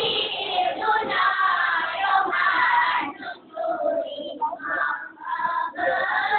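A group of boys singing marhaban, a Malay Islamic devotional chant, in phrases with short breaks between them, about halfway through and again near the end.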